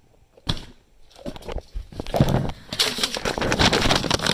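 Close crinkling and rustling handling noise. It starts as a few scattered rustles and becomes a dense, continuous crinkle about two seconds in.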